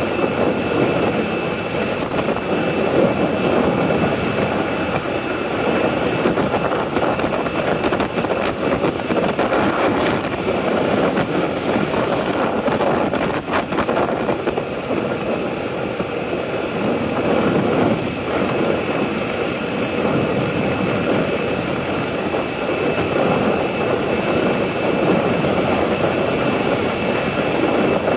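Motorbike riding at steady road speed: engine running with rushing wind and road noise on the microphone, and a thin steady whine above it.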